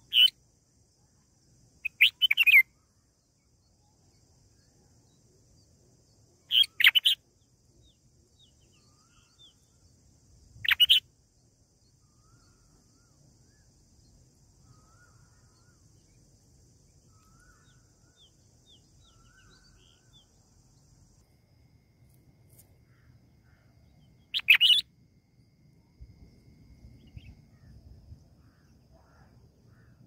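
Red-whiskered bulbul giving short, loud chirping calls in five bouts, some doubled, at irregular gaps with a long pause in the middle.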